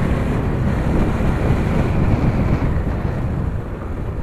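Wind rushing over the microphone of a riding motorcycle, with the bike's engine running underneath at a steady cruising speed; it eases off slightly near the end.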